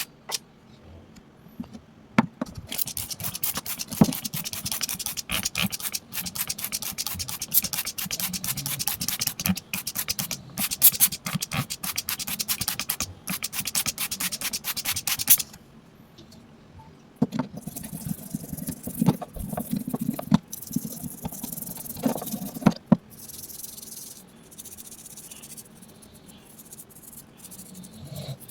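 Rapid scraping and scrubbing strokes on a dirty object being cleaned. They come in two long runs with a short pause between them, then turn to fainter rubbing near the end.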